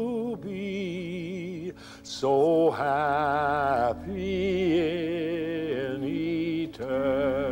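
A girl's voice singing a slow invitational hymn, long held notes with a wide vibrato, in phrases broken by short breaths.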